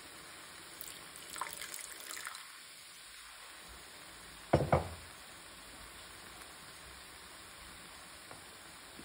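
Brief crackling sizzle of food in a hot stainless steel pan, then two sharp knocks in quick succession about four and a half seconds in.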